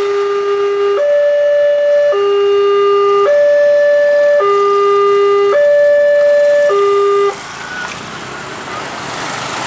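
Railway level-crossing warning alarm sounding a two-tone hi-lo signal, switching between a low and a higher tone about once a second, then cutting off suddenly about seven seconds in as the crossing reopens after the train. Motorcycle engines follow as traffic moves off across the tracks.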